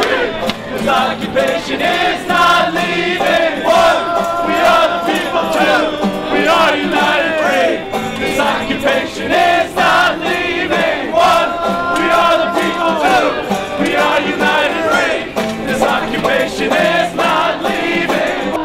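A large marching crowd chanting and singing together, many voices at once, with a few long held tones.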